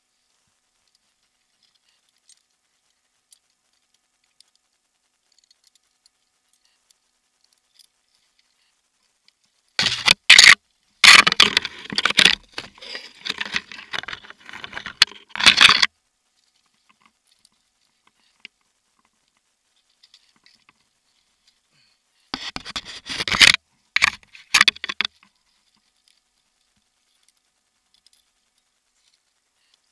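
Climbing gear being handled: carabiners and hardware jangling, with rope and clothing scraping, in two loud bursts, a longer one about ten seconds in and a shorter one a little over twenty seconds in. Near silence in between.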